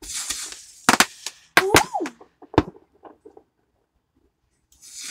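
Consumer fireworks going off in the street: a sudden hiss, then several sharp cracks about a second apart and a few small pops, with another short hiss near the end.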